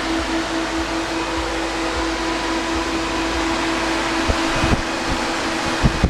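Electric radiator cooling fans on a 1996 Ford F-150 running with a steady rushing whoosh, with the 4.9-litre inline-six idling underneath as a low rumble. A few dull thumps come near the end.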